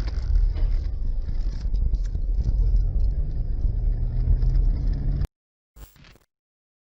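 Engine and road rumble from inside a moving car, with some rattling, picked up by a dash cam; it cuts off abruptly about five seconds in, followed by a brief faint sound and then silence.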